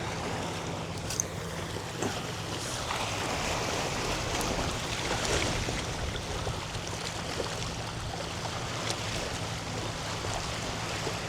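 Steady wind and bay water washing at the shoreline, an even rushing noise with a constant low hum underneath.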